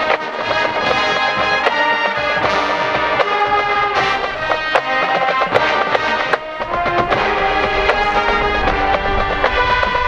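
College marching band playing a hard-rock arrangement: brass and woodwinds hold chords over sharp drumline strikes.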